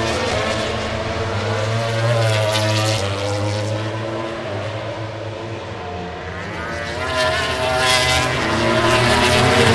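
MotoGP racing motorcycles' engines running at high revs, several engine notes rising and falling as the bikes pass. The sound eases off a little mid-way and builds again near the end.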